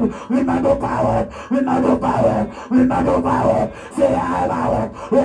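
A woman's voice praying aloud in a fast, rhythmic run of short loud vocal bursts, a little more than one a second, without recognisable words.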